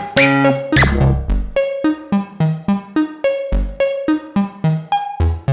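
Make Noise Eurorack modular synthesizer playing an analog step sequence driven by BRAINS and Pressure Points: short plucked synth notes at about four a second, with bass notes underneath. A gliding pitch sweep sounds in the first second.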